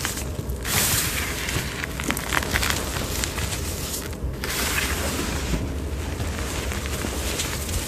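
Hands squeezing and crushing a heap of crumbled gym chalk, the powder crunching with fine crackles. It comes in repeated squeezes with short pauses, about half a second in, at about four seconds and again near six seconds.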